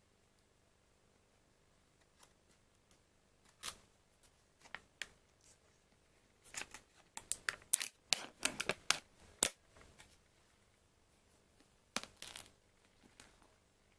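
Plastic and foil packaging of a fruit quark cup being handled, crinkling and crackling in scattered sharp clicks, with a dense run of crackles in the middle and a short burst near the end.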